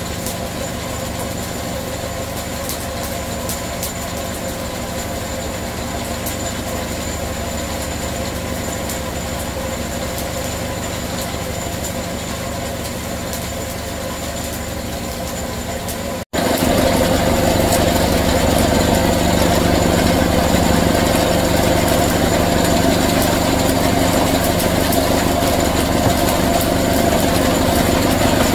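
Puffed rice stick extruder machine running steadily, its drive and screw making a continuous mechanical drone with a hum of several steady tones. About sixteen seconds in, the sound breaks off for an instant and comes back louder.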